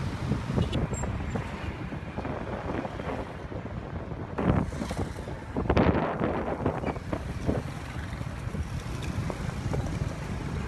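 Wind buffeting the microphone over a steady rumble of engine and road noise from a motorcycle moving through city traffic, with stronger gusts about four and a half and six seconds in.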